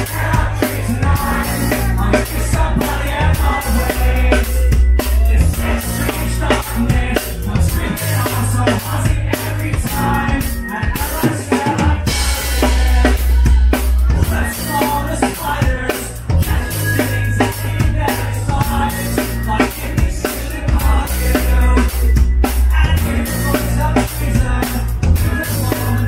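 Pop-punk band playing live, the drum kit to the fore with snare and kick hits over bass and guitar.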